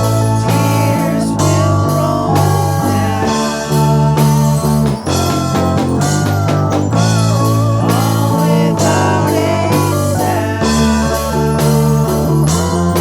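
Instrumental rock music: an electric guitar lead with bending notes over bass guitar and drums.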